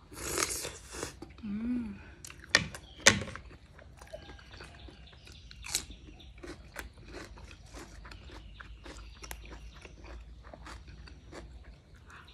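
Close-up eating sounds: a bite into a sausage, then steady wet chewing with many small lip smacks and mouth clicks, two sharper clicks about two and a half to three seconds in.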